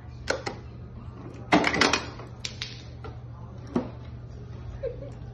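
Refrigerator door ice dispenser worked by a dog's paw: a click, then a clatter of ice cubes dropping out about a second and a half in, followed by a few scattered clicks, over a steady low hum.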